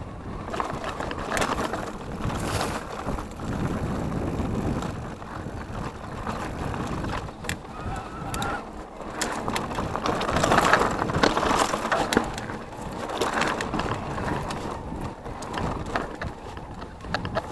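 Electric mountain bike rolling fast over a dirt singletrack: tyres crunching on the gravelly surface and the bike rattling and knocking over bumps, in an uneven, continuous clatter.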